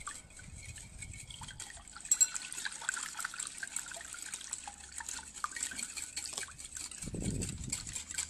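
Hand wire whisk beating a thin liquid mixture of egg, sugar, milk, orange juice and oil in a bowl: rapid, continuous clicking and sloshing as the wires strike the bowl and churn the liquid, growing louder about two seconds in. A short low thud near the end.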